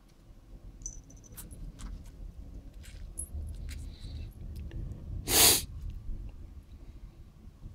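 A feral kitten hisses once, a short breathy burst of about half a second a little past the middle, a defensive warning. Faint clicks and scrapes of a finger and small claws on the concrete floor come and go around it.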